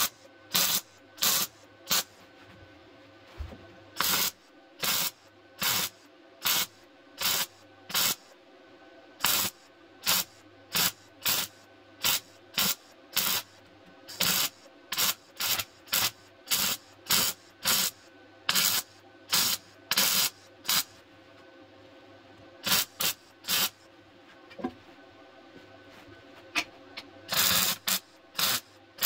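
MIG welder stitch-welding car-body sheet steel: short crackling bursts of the arc, a little more than one a second, each lasting a fraction of a second. It is joining a replacement rear inner wheel arch panel in short stitches, with a few longer breaks near the end.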